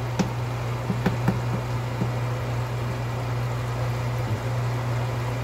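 Wooden spoon stirring a pan of simmering beef curry, with a few light knocks of the spoon against the pan in the first two seconds, over a steady low hum.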